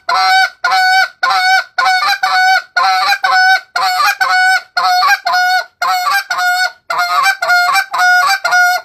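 Short-reed goose call blown in a fast, steady run of short spit moans, about two or three a second, each note breaking upward in pitch as the reed jumps. This is hard, hammering calling meant to get geese's attention and turn them.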